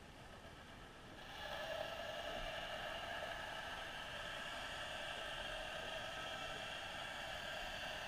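Faint, muffled underwater noise picked up through a submerged camera: a steady whir and hiss that swells about a second in and then holds.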